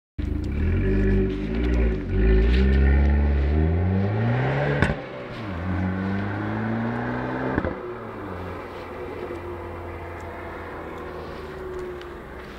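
Stock Fiat 500 Abarth turbocharged 1.4-litre four-cylinder engine revving. Its pitch climbs twice, each climb cut off by a sharp snap as it drops, then it settles into steady, quieter running after about eight seconds.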